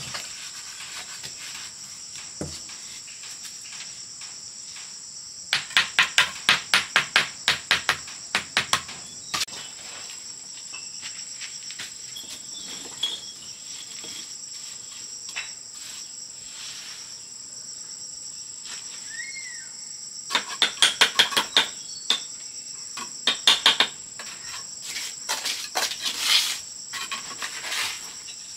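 Crickets chirring steadily and high throughout, with two runs of rapid sharp knocks, about three a second and each lasting three or four seconds, starting about five seconds in and again about twenty seconds in: hand-tool tapping on the bricks of the stove being built.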